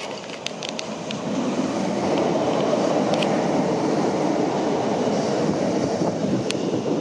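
Northern Class 156 Sprinter diesel multiple unit passing close by, its engine and wheel-on-rail noise growing louder over the first two seconds and then holding steady as the carriages go past. A few sharp clicks stand out, near the start, in the middle and near the end.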